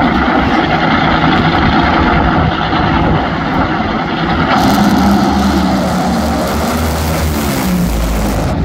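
Two Top Fuel Funny Cars' supercharged nitromethane V8 engines at high revs during side-by-side burnouts, with the rear tyres spinning. The sound is a loud, dense, rough roar. About halfway in a hissier layer joins, and the sound cuts off abruptly just before the end.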